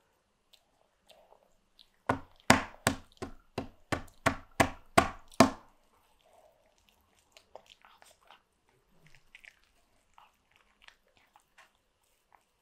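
A small child's hand slapping a hard tabletop, about ten quick knocks at about three a second, followed by faint chewing sounds.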